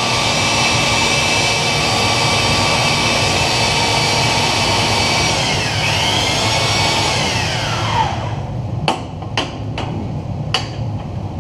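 Electric motor of a bladesmith's twisting machine running under load as it twists a hot Damascus billet, then winding down with a falling pitch about eight seconds in. A few sharp knocks follow near the end.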